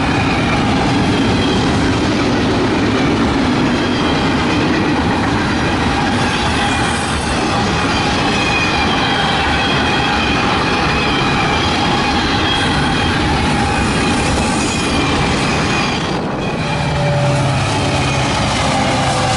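Double-stack intermodal freight cars rolling past at speed: a steady rumble and clatter of steel wheels on rail, with thin wavering squeals from the wheels. About two seconds before the end, a Union Pacific EMD SD70ACe diesel locomotive comes by and its engine adds a low drone.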